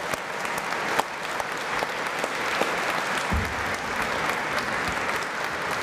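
Audience applauding steadily, the welcome for a speaker just introduced at the podium. A low rumble joins in about halfway through.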